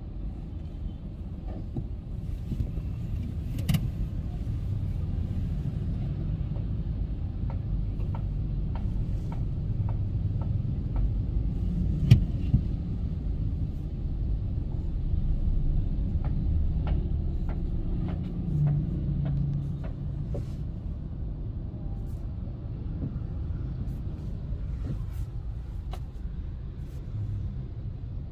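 Car on the road, heard from inside the cabin: a steady low rumble of engine and tyres, with scattered light clicks and knocks from the cabin and road, the sharpest about twelve seconds in.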